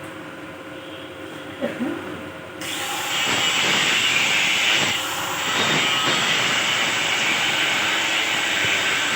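Stick (arc) welding: the electrode's arc strikes about two and a half seconds in and then crackles and hisses steadily as a weld is run on the grill.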